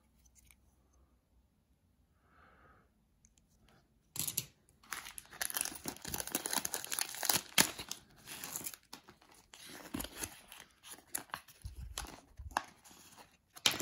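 A glossy pack wrapper is torn open and crinkled, starting about four seconds in with dense crackling. Lighter paper rustling follows as the folded checklist sheet inside is opened out.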